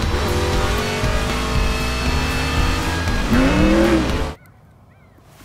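Animated stock-car racing soundtrack: several race-car engines running at speed over crowd noise, with one pitch rising and falling about three seconds in. It cuts off suddenly after about four seconds.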